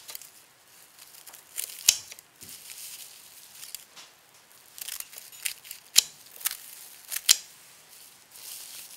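Scissors cutting through a stack of dried laver (gim) sheets into quarters: several sharp, crisp snips, with the brittle seaweed sheets crinkling and rustling between the cuts.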